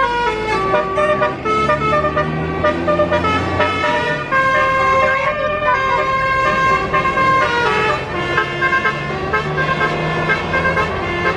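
Tour bus 'telolet' musical air horn playing a tune: a run of steady horn notes that step up and down in pitch, some held for about a second, with no break.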